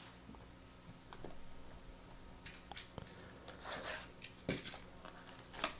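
Plastic shrink wrap on a trading-card box being slit and scraped with a small cutter: faint, scattered scratches and crinkles, with a few louder scrapes in the second half.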